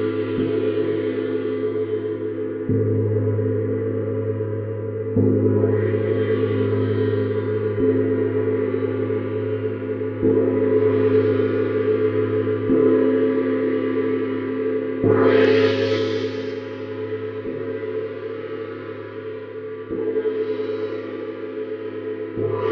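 Paiste Neptune planet gong struck steadily with a soft mallet, about once every two and a half seconds, keeping up a continuous ringing drone. One stroke about two-thirds of the way through is harder and adds a bright shimmer.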